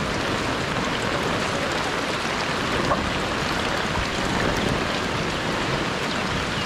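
Rain falling steadily, a dense even hiss.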